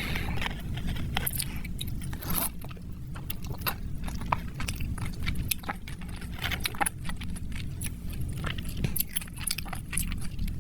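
Close-miked mukbang eating: chewing and mouth sounds with many small sharp clicks and smacks over a steady low hum.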